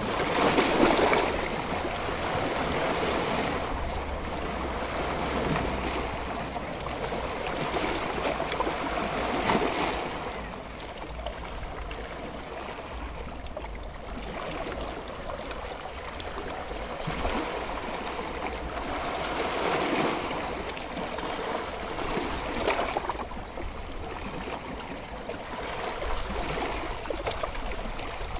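Sea surf washing onto a rocky shore, a steady hiss that swells and fades every few seconds as waves break and draw back.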